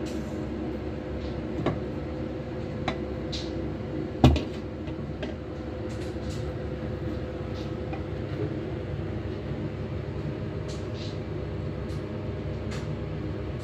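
Wooden spatula scraping and tapping as stir-fried turnip and fish are pushed out of a wok into a glass bowl: light scattered clicks and one sharp knock about four seconds in, over a steady hum.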